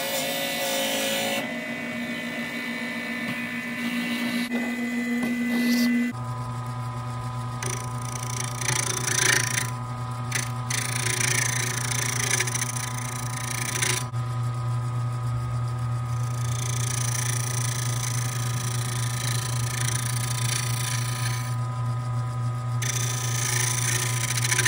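Wood lathe running with a steady hum while a turning gouge cuts a spinning wooden blank, the hiss of the cut coming and going. For the first six seconds a higher steady machine tone is heard while a drill in the tailstock chuck bores into the blank; it changes abruptly to the lower lathe hum.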